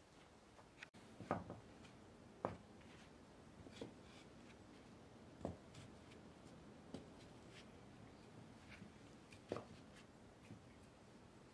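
Faint wooden knocks and clacks: end-grain blocks of hand-split shortleaf pine set down by hand and butted against neighbouring blocks, one knock every second or two at an uneven pace.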